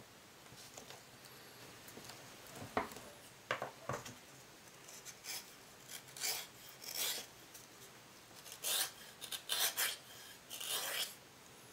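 Hand tool scraping along the edge of a 2 mm veg-tanned leather watch strap in about ten short, irregular strokes, starting a couple of seconds in.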